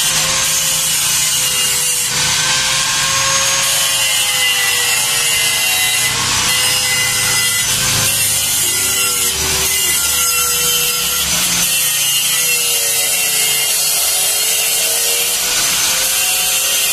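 Power tool running continuously under changing load, a harsh grinding, rasping noise with a whine that wavers up and down in pitch.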